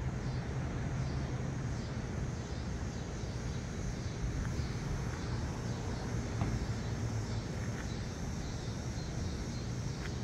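Steady outdoor background rumble, with a faint high pulsing repeating a little more than once a second and a few faint ticks.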